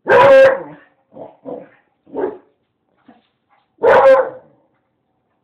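Dog barking: two loud barks about four seconds apart, with three shorter, quieter yips between them.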